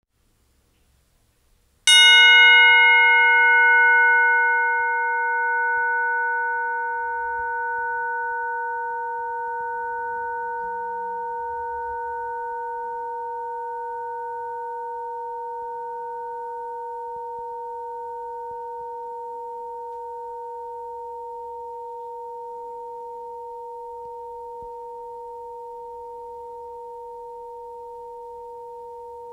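Tubular bell, a brass tube hung from a wire loop, struck once about two seconds in. The bright clang of the strike dies away within a few seconds, leaving two low steady tones that ring on and fade slowly.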